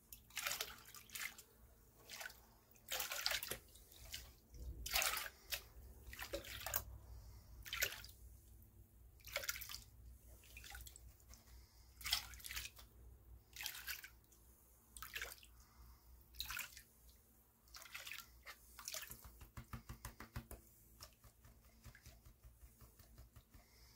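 Water splashing and sloshing as a plastic gold pan is dipped and swirled in a tub of muddy water, washing sediment out over the rim. There is a quick run of small clicks a little before the end.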